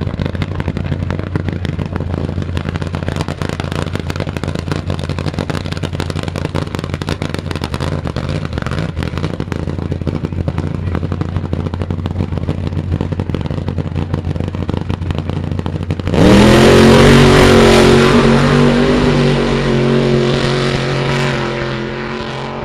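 An engine idling steadily with a rapid uneven beat. About two-thirds of the way through it is suddenly revved hard, its pitch sweeping up and holding high, then easing off slowly toward the end.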